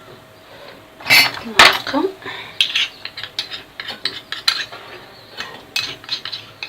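Metal spoon clinking and scraping against a pan as custard powder is spooned into milk, a run of quick light taps.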